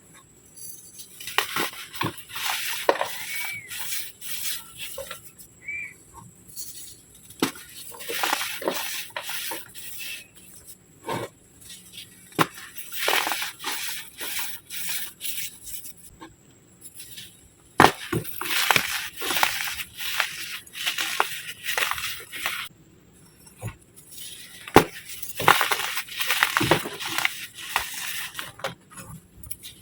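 Egg-shaped pieces of packed baking soda being crushed, crunching and crumbling in repeated runs of crackling with sharp snaps, broken by short pauses.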